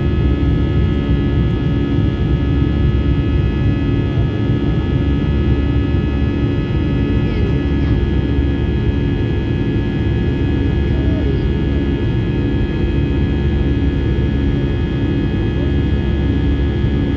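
Airbus A320-214 climbing out after takeoff, heard inside the cabin beside the wing: its CFM56-5B turbofan engines run steadily at climb thrust, a deep rumble under several steady whining tones.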